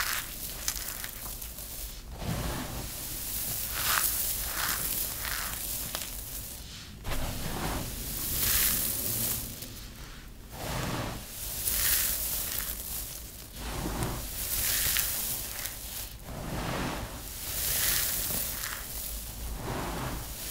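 Hands scooping, squeezing and pressing handfuls of dry, crumbled soap, a crisp crunching rustle that swells and fades in repeated waves as the crumbs are gripped and let fall.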